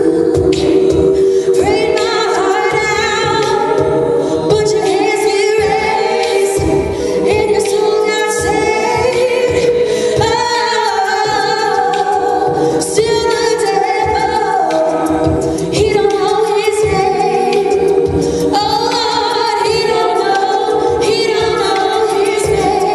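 All-female a cappella group singing in close harmony, with held background chords under a moving lead line.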